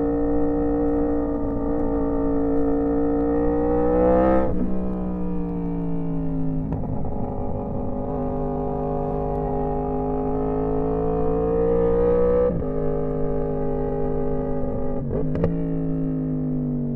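Yamaha R1M's crossplane inline-four pulling hard, its pitch climbing through a gear, with a quick upshift about four and a half seconds in and another about twelve and a half seconds in. Around fifteen seconds in there are a couple of sharp cracks, then the engine note falls as the bike slows.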